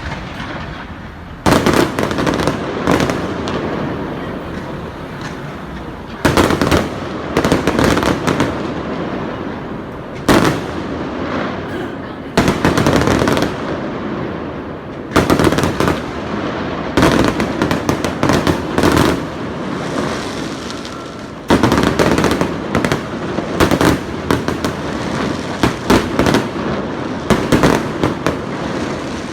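Fireworks display: aerial shells bursting with sharp bangs in clusters every few seconds, with an echoing rumble between the bursts.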